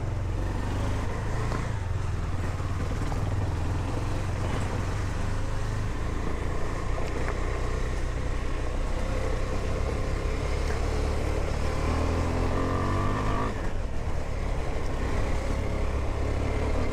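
KTM 390 Duke's single-cylinder engine running as the bike is ridden and accelerated up a road. Near the end the revs climb for a second or two, then drop suddenly.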